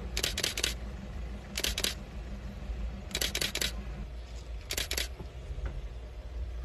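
Camera shutter firing in rapid bursts of several clicks. There are four bursts about a second and a half apart, over a low steady rumble.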